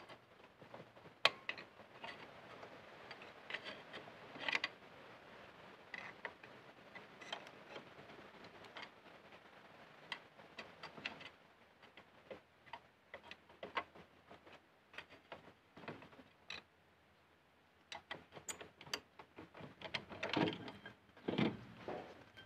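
Rear brake drum being rocked and twisted by hand to pull it off the hub, the rusty drum scraping with irregular clicks and metal knocks. Near the end come two louder clunks as the drum comes free of the brake shoes.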